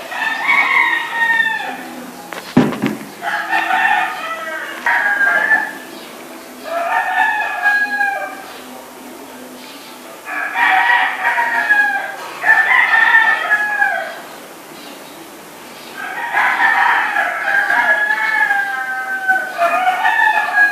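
Rooster crowing: about five long crows a few seconds apart, each with a falling tail. A single sharp knock comes about two and a half seconds in.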